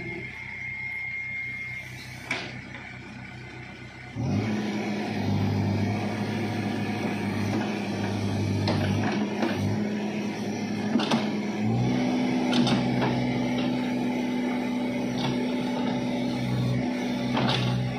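Backhoe loader's diesel engine running under work, picking up throttle about four seconds in and again near twelve seconds, with a few short metallic clanks from the machine.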